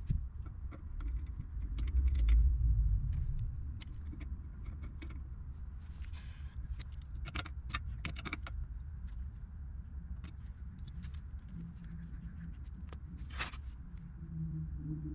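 Scattered metallic clinks and taps of a pipe wrench and steel pipe fittings being handled, with a cluster of clinks about halfway through and one sharp clink near the end. A low rumble runs under it, swelling loudest in the first few seconds.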